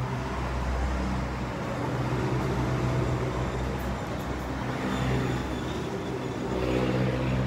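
A motor vehicle engine running with a steady low hum, its pitch rising slightly near the end.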